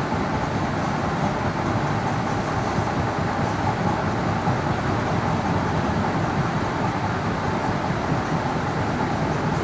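MBTA Green Line light-rail car running between stops: a steady rumble of wheels on track with a steady whine above it.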